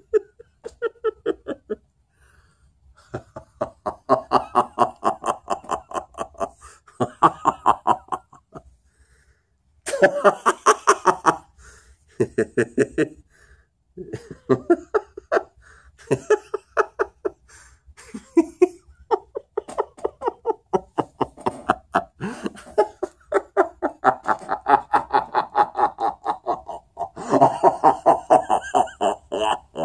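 A man laughing in long runs of rapid "ha-ha" pulses, about five a second, with short pauses between the runs and the pitch changing from one run to the next. These are acted character laughs done as a voice warm-up, some higher and brighter than others.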